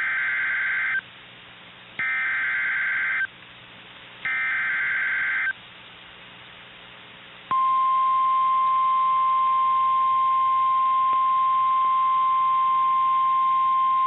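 Emergency Alert System SAME header on NOAA Weather Radio: three short bursts of warbling digital data tones, about a second apart, followed about seven and a half seconds in by the steady 1050 Hz weather radio warning alarm tone, which signals that a warning message is about to be read.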